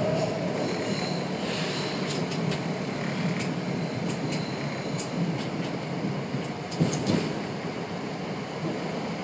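PATCO Speedline train running along the track: a steady rolling rumble with scattered sharp clicks, and a couple of louder knocks about seven seconds in.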